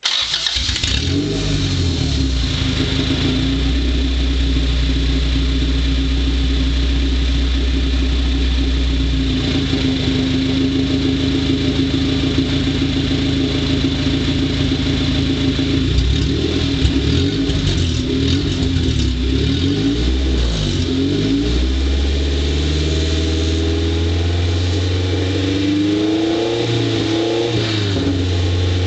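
Honda B18C1 DOHC VTEC engine with an aftermarket header starts up suddenly and runs at a steady idle. In the second half it is blipped several times, with the pitch rising and falling.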